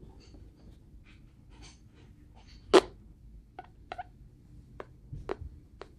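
Black permanent markers drawing on paper laid on clipboards: faint scratchy strokes with a scatter of small ticks, and one sharp, louder click a little under three seconds in.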